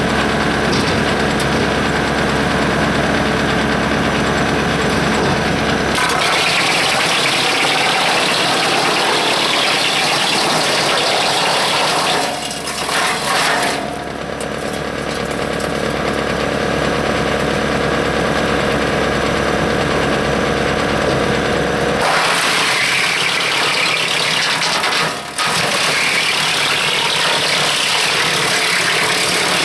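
A 30 hp John Deere tractor drives a Hanmey WCX5 PTO wood chipper, and the engine and the spinning chipper rotor run together in a loud, steady din with a low hum. The tone changes about six seconds in and again a little after twenty seconds. The level dips briefly twice in between.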